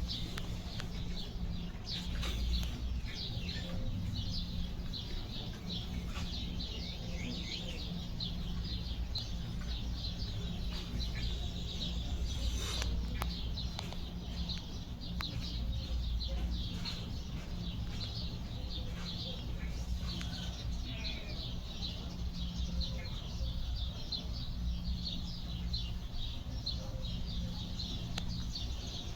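Small birds chirping in quick, continuous short notes, over a steady low hum.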